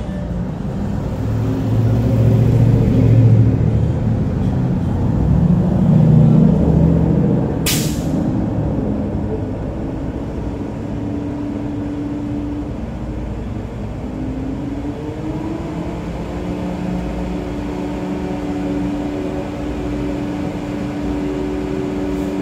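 A car driving: engine and road rumble, swelling twice in the first several seconds as the engine pulls harder, then settling into a steady drone. There is a single sharp click about eight seconds in.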